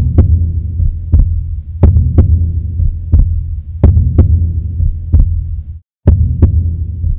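Suspense soundtrack: heartbeat-like thuds, some in close double beats, about once a second over a steady low drone. The sound cuts out for a moment about six seconds in.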